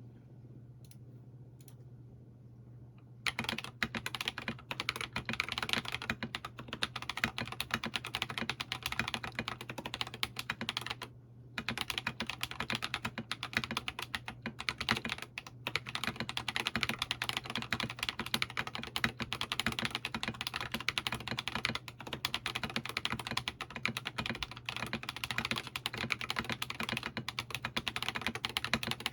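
Mechanical keyboard with lubed Holy Panda tactile switches, an aluminium plate and PBT SA keycaps being typed on, fast and continuously. The typing starts about three seconds in and stops briefly near the eleven-second mark.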